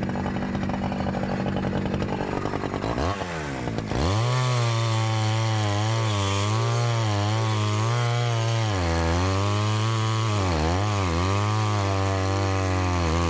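Two-stroke petrol chainsaw running at high, steady revs, then dropping to a lower, labouring pitch from about four seconds in as it cuts into a charred log. The revs waver as the chain works through the wood.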